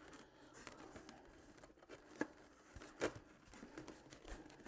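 Faint handling noise of foam model-airplane parts as the vertical stabilizer is test-fitted into the fuselage: light rubbing and rustling with a few small clicks, the sharpest about two and three seconds in.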